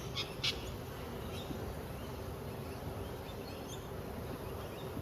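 Honeybees buzzing steadily around an opened hive during a brood-frame inspection, with short bird chirps now and then, the clearest in the first half second.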